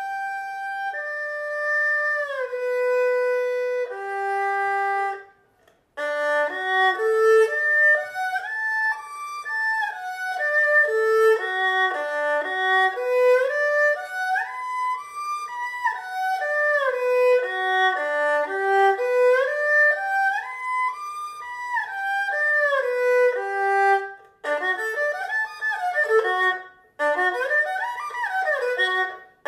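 Solo erhu bowing a broken-chord arpeggio exercise, notes stepping up and down through the chords. Slow held notes at first, then after a brief pause the notes come quicker in steady rising and falling runs, with another short break about two-thirds of the way through.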